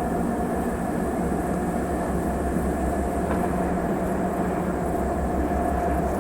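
M62Ko diesel locomotive hauling a loaded freight train, its diesel engine droning steadily and evenly throughout.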